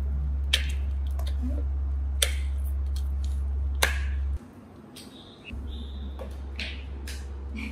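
Sharp clicks and taps, one every second or two: live freshwater paddy crabs being picked up off a tiled floor and dropped into a plastic bowl. A steady low hum runs underneath and drops out briefly in the middle.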